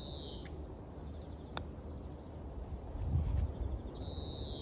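A putter strikes a golf ball with one sharp click about a second and a half in. A bird calls twice, once near the start and once near the end, over a steady low rumble that grows louder in the second half.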